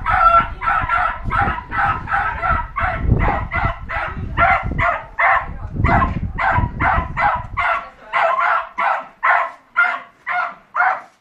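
Parson Russell terrier barking steadily and rapidly, about three barks a second, while working in an artificial den tunnel during earthdog training.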